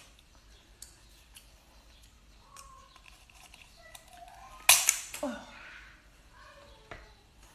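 Kitchen scissors cutting through a cooked lobster claw's shell: a few faint clicks, then one loud, sharp crack as the shell splits, about two-thirds of the way through.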